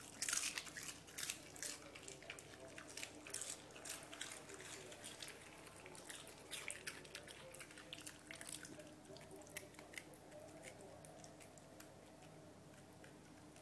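Dogs crunching and chewing raw lettuce leaves: a run of short, crisp crunches, busiest in the first few seconds and thinning out toward the end.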